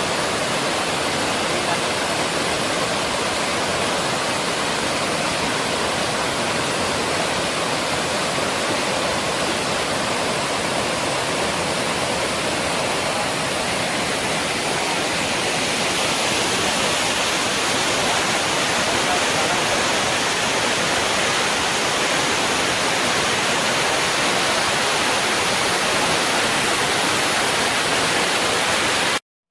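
Waterfall pouring steadily, close up: an even, dense rush of water, running full. It turns a little brighter about halfway through and cuts off abruptly just before the end.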